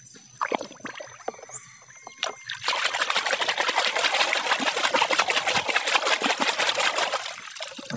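Hand swishing a toy car hard in a basin of muddy water, a dense run of rapid splashing from about three seconds in until shortly before the end. Before it come a few light knocks.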